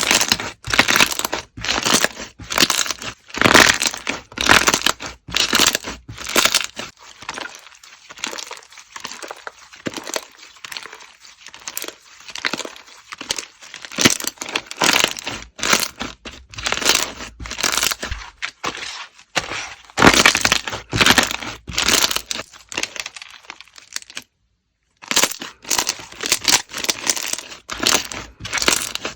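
Slime worked by hand close to the microphone: a dense, irregular run of crisp crackles and pops, broken by a brief silence about 24 seconds in.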